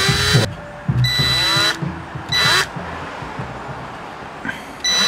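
An electric power tool's motor started and stopped in short runs, each starting with a rising whine that levels off: about four runs, the last beginning near the end.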